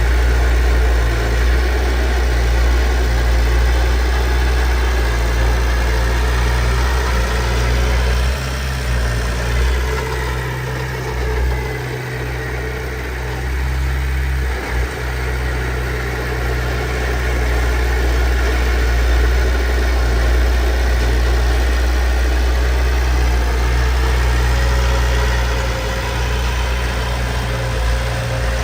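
Heavy diesel earthmoving engine running steadily with a deep low note. It eases off for several seconds in the middle, then comes back up to its earlier level.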